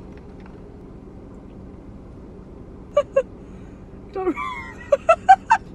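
Steady low hum inside a car cabin. In the second half come a few short wordless vocal sounds, hums or murmurs, and near the end a quick run of short notes that step up in pitch.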